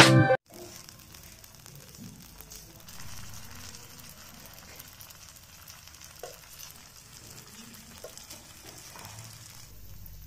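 Paneer tikka skewers of marinated paneer, onion and capsicum frying on a flat tawa griddle: a soft, steady sizzle with faint crackles and pops.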